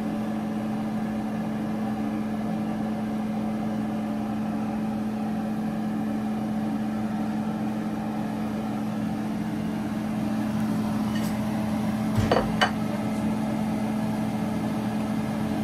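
A steady machine hum with a constant pitch. About twelve seconds in there are a few short clinks.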